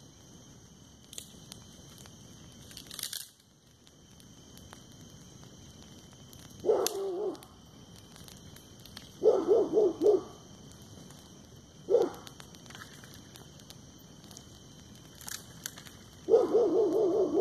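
A dog barking in four short runs of quick barks, the second and last runs the longest. Under the barking runs a steady high-pitched drone, with faint crackling from a burning brush fire.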